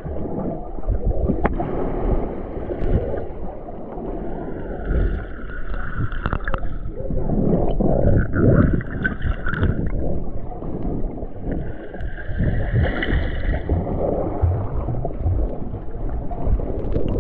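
Muffled underwater noise from a submerged camera: water gurgling and sloshing around the microphone, with a few sharp knocks.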